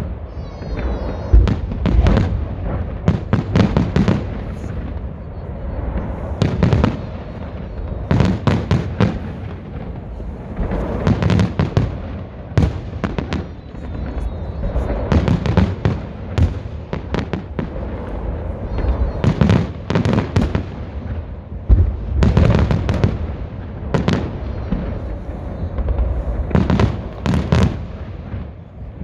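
Fireworks salute: shells bursting in many loud bangs in quick succession, coming in clusters with short lulls between them.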